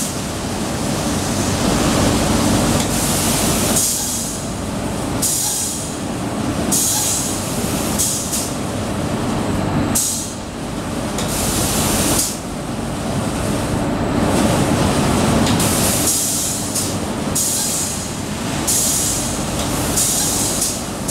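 Yuzkor automatic section-painting line running: a steady, loud machine hum, with the spray guns' hiss surging and fading every second or two as the spray head traverses over the steel beam.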